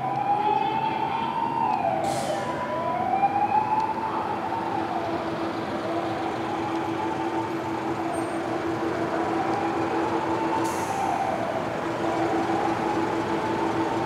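Japanese ambulance's electronic siren wailing, its pitch rising and falling about once every two seconds, sounded while the ambulance crosses an intersection on an emergency run.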